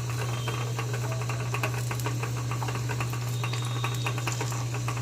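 Chopped onion sizzling and crackling in hot oil in a frying pan, just added, over a steady low hum.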